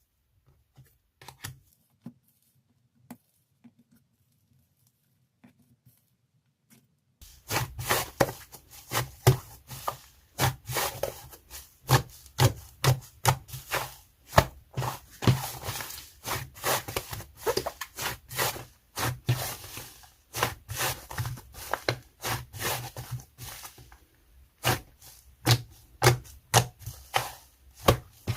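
Hands playing with a fluffy clay slime with a pastry-like texture. It is faint, with only a few soft clicks, for about the first seven seconds, then turns into a dense run of crackling clicks and pops.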